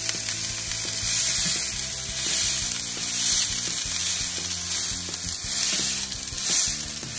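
Thick tomahawk steak sizzling on a hot plancha at about 300 degrees, a steady fat-spitting hiss that swells and eases every second or so.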